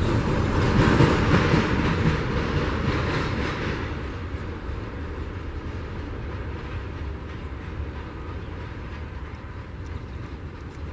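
Double-stack intermodal freight train's last well cars rolling past on steel wheels and rails, the sound fading steadily as the train moves away.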